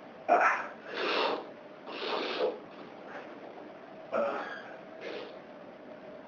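A man sneezing from a dust allergy: a run of abrupt, noisy sneezes and breaths, the loudest and sharpest about a quarter second in and another sharp one about four seconds in.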